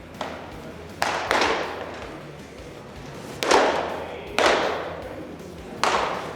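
Pitched baseballs smacking into catchers' mitts in a bullpen, four sharp pops at uneven intervals, each with a short echoing tail.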